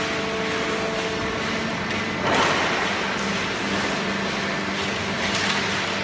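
Fully automatic horizontal hydraulic cardboard baler and its feed conveyor running: a steady machine hum with a few held tones, and two louder noisy surges, about two seconds in and again about five seconds in.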